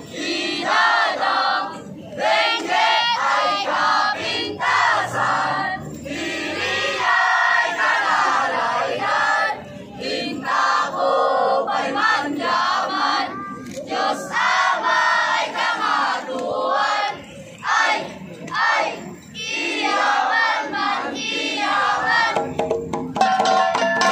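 A large group of children chanting and shouting together in loud, rhythmic phrases, with crowd noise. Near the end, gong music starts.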